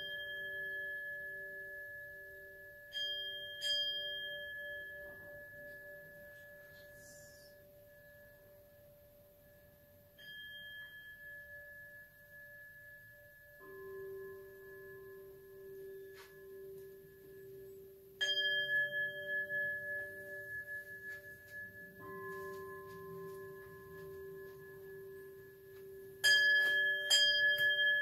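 Buddhist bowl bells struck at intervals, roughly seven strikes, each one ringing on in a long sustained tone. A second bell of a different, higher pitch joins about halfway, and two strikes come in quick succession near the end.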